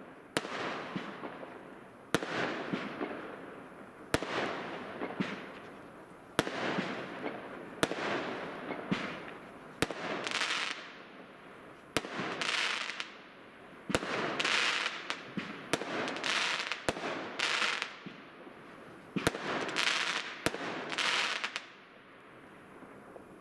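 Fireworks going off in a long string: about fifteen sharp bangs, one every second or two, each trailing off into a crackling hiss. The bangs come closer together towards the end and then stop.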